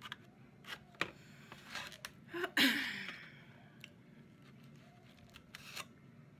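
Black plastic knife and fork cutting and scraping fried flounder in a styrofoam takeout container: scattered clicks and scrapes, with one louder squeaky scrape about two and a half seconds in.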